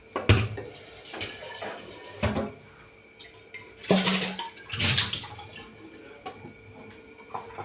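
Kitchen handling noises: a handful of short knocks and clatters with some water sloshing, over a faint steady hum.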